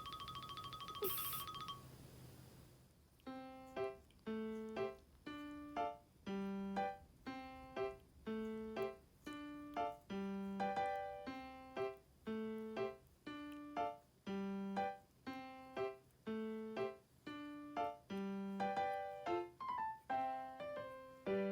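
Background piano music: a light melody of single notes, about two a second, starting about three seconds in. A brief fast-pulsing chime ends about a second in.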